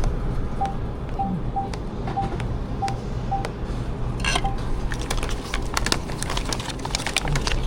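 Payment terminal keypad beeping as its buttons are pressed: about eight short beeps at the same pitch, unevenly spaced, followed by light clicks and a brief rustle.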